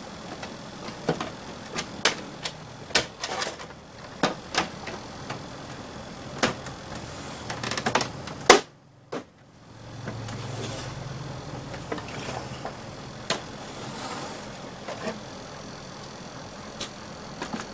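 Plastic clicks and knocks as the casing and front door of an HP LaserJet P2015 laser printer are handled and opened, ending in a loud snap about eight seconds in. After a brief gap the knocks are fewer and lighter, over a low hum.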